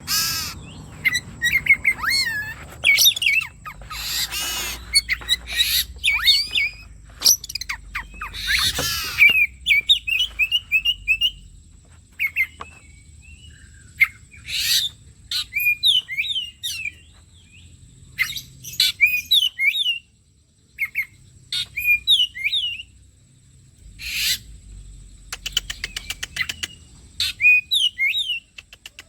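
Oriental magpie-robin (kacer) singing: a run of varied whistled phrases that slide up and down in pitch, broken by short harsh notes and, near the end, a quick rattle of clicks.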